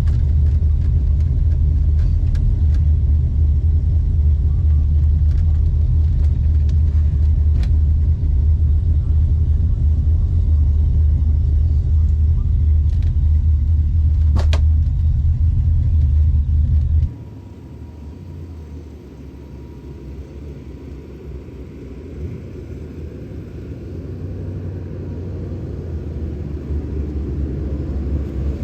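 Car engine running with a loud, steady low rumble. About two-thirds of the way in it cuts abruptly to a much quieter rumble that slowly grows louder.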